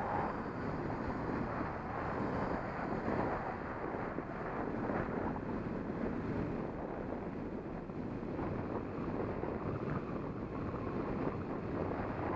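Wind rushing over the microphone of a camera on a moving bicycle: a steady, loud rushing noise.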